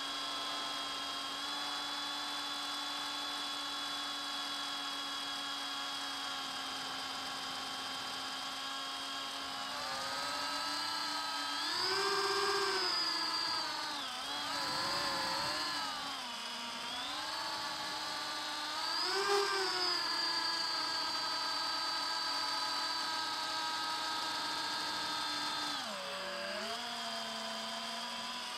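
iFlight Titan DC5 5-inch FPV quadcopter's brushless motors and propellers whining in flight, heard from its onboard camera. The whine holds steady at first, then climbs in pitch with the throttle twice, about twelve and nineteen seconds in, dips between, and drops lower near the end.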